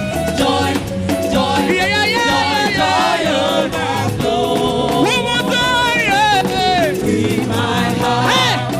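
Live praise music: voices singing over a band with bass and a steady beat.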